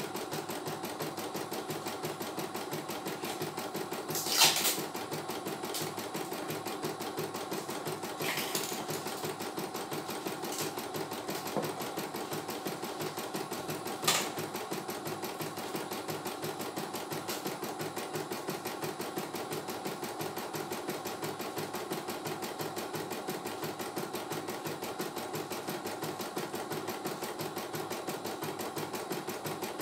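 CNY E900 computerised embroidery machine stitching out a design, its needle running in a fast, even rhythm. A few sharp knocks stand out over it, the loudest about four seconds in.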